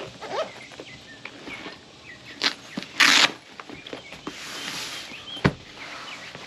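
A folding fabric-covered portable solar panel being handled and unfolded: rustling and light knocks, a short loud ripping sound about three seconds in, and a sharp knock about five and a half seconds in.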